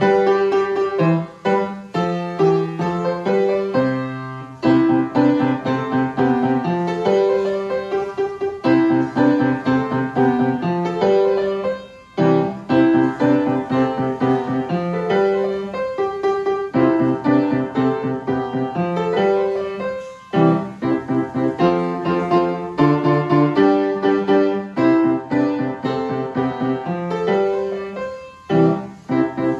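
Palatino upright piano played with both hands: a lively piece with a steady, repeating bass pattern under a melody, with short breaks between phrases about twelve and twenty seconds in.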